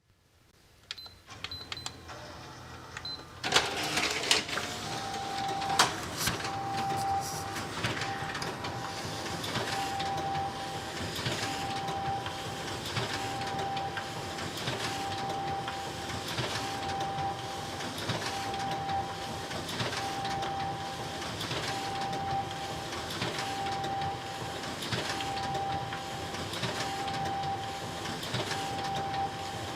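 Photocopier: a few short beeps from the control panel, then the machine starts with a loud clunk about three and a half seconds in. It then runs steadily, with a pulsing hum that repeats about every second and a half, in time with its copying cycle.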